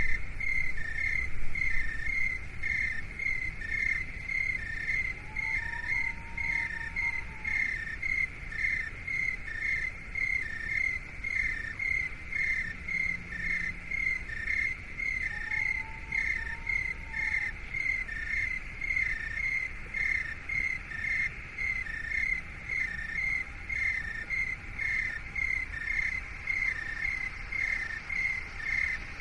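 Insect-like chirping in a steady rhythm, just under two chirps a second, in two alternating pitches, used as a tinnitus-masking sound. A soft whistle-like tone rises and falls twice over a low steady rumble.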